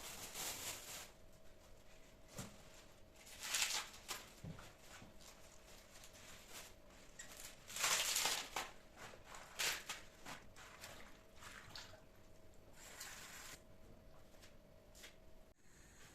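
Brief rustles and clicks of things being handled, in several short bursts, over a faint steady hum that cuts off near the end.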